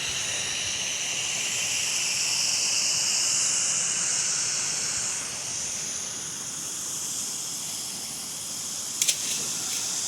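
Rushing rainwater runoff, a steady hiss that swells and then eases a little. A couple of sharp clicks come near the end.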